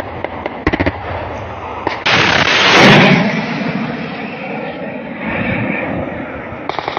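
Igla shoulder-fired anti-aircraft missile launching: a few sharp clicks, then a sudden loud blast about two seconds in. The blast peaks a second later and fades into a steady rushing roar as the missile climbs away.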